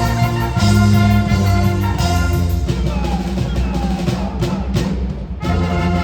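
Pep band of brass and drums playing a stand cheer: held brass chords over a steady drum beat. Near the end the horns drop out for a few drum hits and a short pause, then the full band comes back in.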